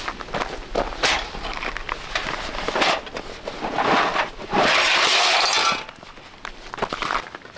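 Footsteps crunching on gravel, then the black steel parts of a folding camping fire pit clinking as they are pulled from a fabric carry bag and set down on the gravel, with a loud rustling scrape about five seconds in.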